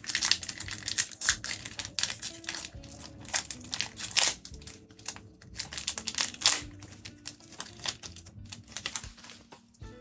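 Foil trading-card booster pack wrapper crinkling and tearing as it is opened: a fast, irregular string of crackles, loudest about four seconds in and again about six and a half seconds in.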